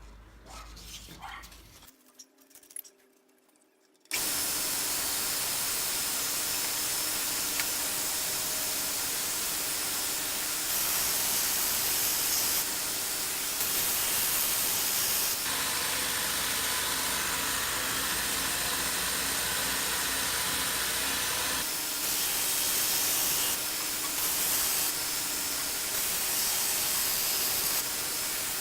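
A 1x42 belt sander with an 80-grit belt starts suddenly about four seconds in and runs steadily, grinding the bevel of a steel cleaver made from a lawnmower blade; the hiss grows louder in a few stretches.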